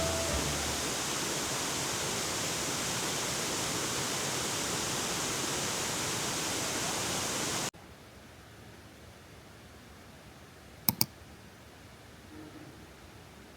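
A steady, even rushing noise, like running water or wind, that cuts off suddenly about eight seconds in to a much quieter hiss, with two quick clicks close together a few seconds later.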